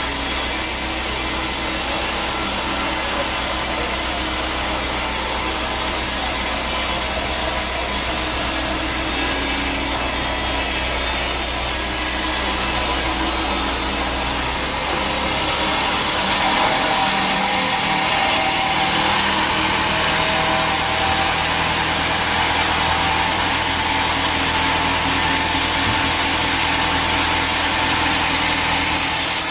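Sawmill saw cutting through a teak log: a steady sawing noise. The sound changes about halfway through, losing its deep hum and gaining a faint whine.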